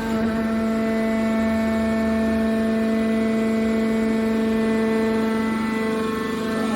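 Hydraulic metal baler's power unit running with a steady hum made of several tones held at one pitch.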